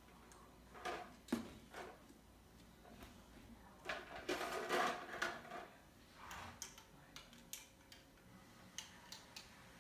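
Handling noise from a toy bow and arrow: a few light clicks and knocks about a second in, a longer rustle around four to five seconds in, then scattered small clicks as an arrow is brought to the bow.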